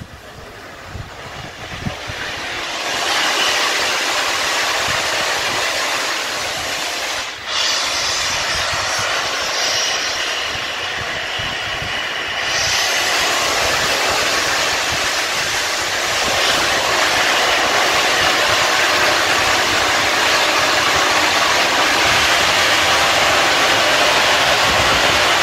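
Merchant Navy class three-cylinder Pacific steam locomotive 35018 British India Line getting its train under way with a loud, steady rush of steam. The sound swells about three seconds in and fills out further about halfway through.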